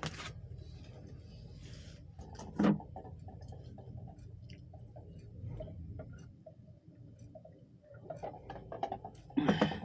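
A person drinking water straight from a plastic pitcher, with small wet mouth clicks and swallowing sounds. A short louder sound comes about two and a half seconds in, and a louder burst near the end.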